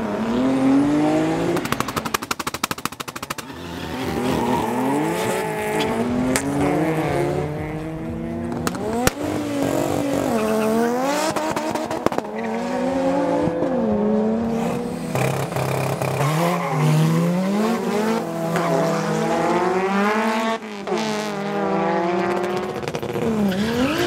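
Drag race cars launching side by side and accelerating hard down the strip, their engines climbing in pitch and dropping back at each gear shift, two engines overlapping. A rapid string of sharp exhaust pops comes about two seconds in.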